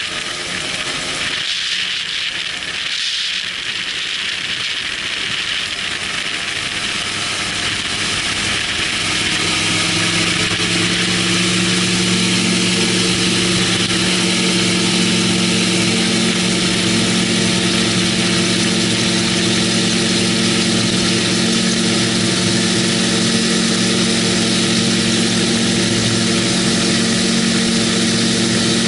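MTO Sport autogyro's engine and pusher propeller on the takeoff run: the engine comes up to full power about ten seconds in and then holds a steady drone, with a constant rush of wind over it.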